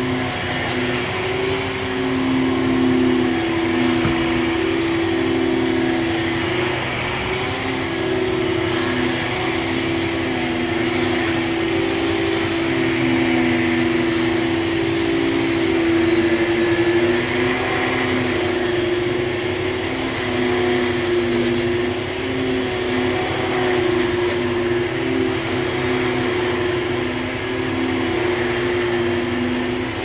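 Hoover Supremacy canister vacuum cleaner running steadily while vacuuming, its motor hum shifting slightly in pitch now and then.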